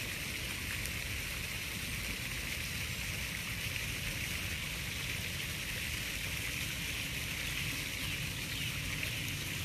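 Steady outdoor background noise: an even high hiss over a low rumble, with no distinct events.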